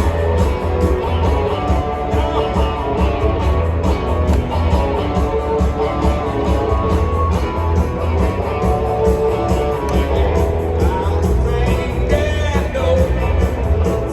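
A rock band playing with electric guitar, bass and drums at a steady beat, with some singing.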